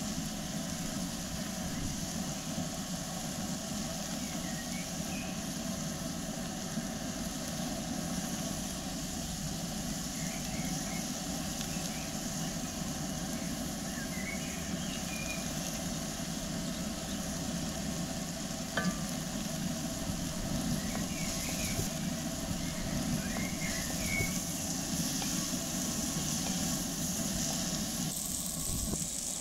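Sliced peppers, onions and mushrooms frying in a cast-iron pot with a steady sizzle, a wooden spoon stirring through them near the end. A few short, faint chirps come and go over it.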